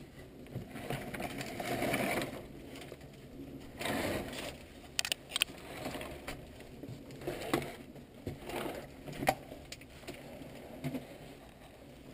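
Close rustling and scraping of a person crawling through leaves and brush under wooden planks, with clothing and gear brushing against wood. A few sharp knocks cut through it, three in quick succession about five seconds in and single ones later on.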